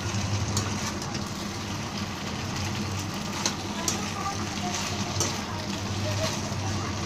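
Metal spatula stirring sauce-coated fried baby corn in a steel kadai, with scattered clicks and scrapes of the spatula on the pan over a steady low hum.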